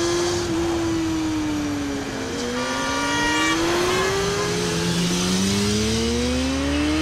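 Motorcycle engine revving, its pitch falling and then climbing twice as it accelerates and shifts gear. A brief steady higher tone sounds over it about two and a half seconds in.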